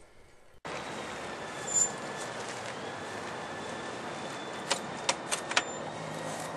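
Steady outdoor city background noise, like distant traffic, starting abruptly just after the opening moment, with a few light clicks about five seconds in.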